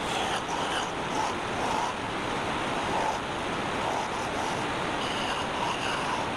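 Wood lathe running with a turning tool cutting the spinning wood: a steady rushing, shaving noise with a faint swell that comes back about every half second.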